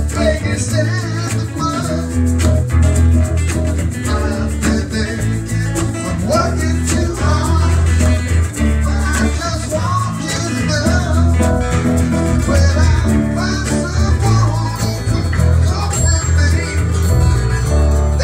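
Small live band playing a song on acoustic guitar, electric guitar and electric keyboard, with steady low bass notes underneath.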